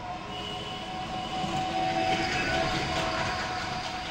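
A passing vehicle, heard off-picture, with a steady whine of several tones over rumbling noise. It grows louder to a peak about halfway through, then fades.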